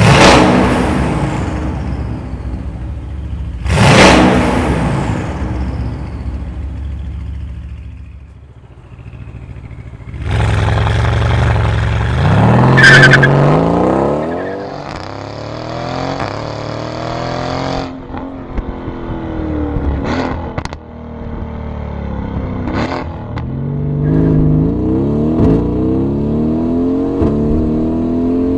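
Mercedes-AMG GT S 4.0-litre twin-turbo V8 through a Fi valved cat-back exhaust with catless downpipes. It gives two sharp free revs at standstill that echo in an underground car park. It then pulls hard with the revs climbing, and accelerates on through upshifts, the note dropping sharply at each gear change.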